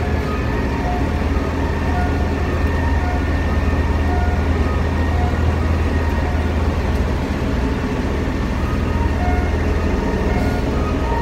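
Yard tractor (hustler truck) engine running steadily while driving, heard from inside the cab as a loud, constant low drone.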